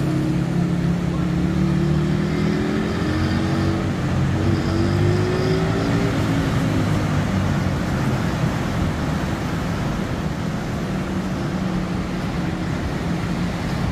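Surf breaking on a beach, heard as a steady wash of noise. A motor vehicle engine runs close by throughout, its pitch rising between about three and six seconds in.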